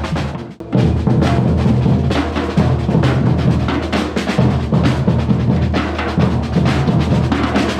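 Batucada-style percussion ensemble drumming a fast, dense rhythm with heavy bass drums. The group stops for a brief break just under a second in, then comes back in together.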